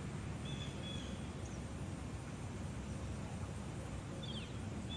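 Outdoor ambience: a steady low rumble with a few short, high bird chirps, about half a second in, near one and a half seconds, and a quick falling pair near the end.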